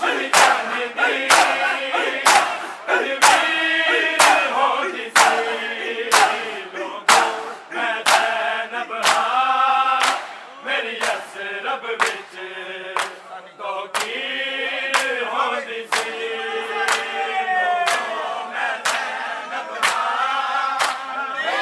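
A crowd of bare-chested men doing matam, slapping their chests in unison with sharp hand-on-skin strikes about once a second. A group of male voices chants a noha in time with the strikes.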